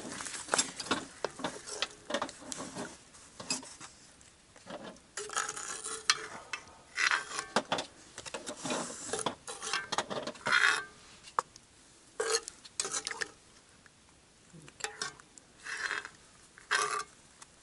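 Metal tongs and a serving spoon scraping and clinking against a cast-iron camp oven as food and gravy are served out of it, in irregular bursts of scrapes and clicks.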